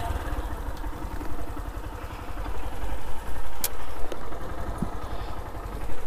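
Motorcycle engine running, with two sharp clicks a little past halfway.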